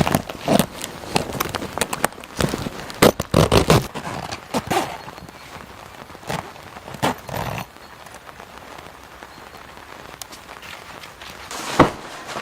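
Irregular knocks, clicks and rustles of things being handled, busiest in the first four seconds and quieter through the middle, over a faint steady hiss.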